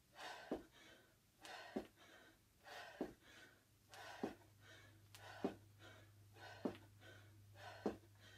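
A person breathing hard and panting through squat jumps, with a dull landing thud about every 1.2 seconds as sneakered feet hit a carpeted floor.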